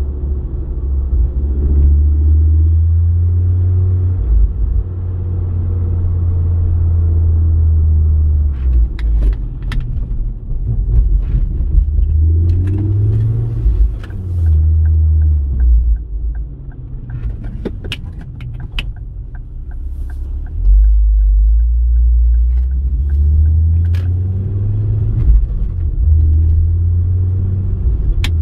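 The Ford Focus ST Mk2's five-cylinder turbo engine is running at a gentle cruise as a steady low drone with road noise, and the drone's pitch steps up and down a few times. Scattered sharp clicks are heard, along with a short run of faint, evenly spaced ticks a little past the middle.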